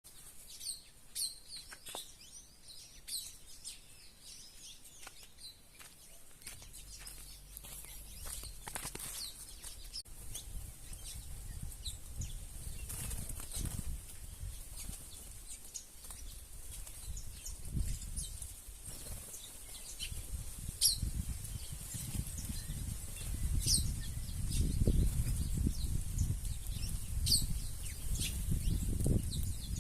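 Red-cowled cardinals giving short, high chirps scattered through, over a low rumbling noise that grows louder in the second half.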